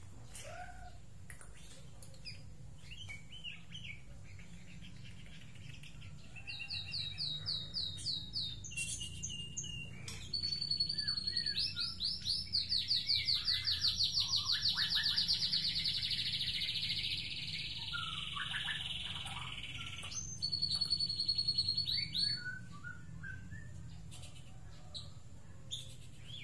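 White-rumped shama (murai batu) singing: a short run of rapid repeated notes, then a long fast trill lasting about ten seconds that slides slowly down in pitch, and another short rapid burst near the end.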